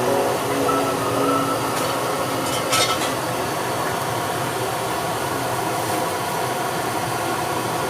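Steady background noise from a street food setting, with a few brief clinks or clatters about two and three seconds in.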